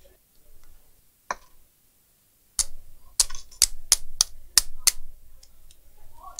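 A quick run of about eight sharp clicks and taps over two seconds, from handling the hot air station's handpiece and its stuck nozzle while it is worked loose after a soak in lighter fluid.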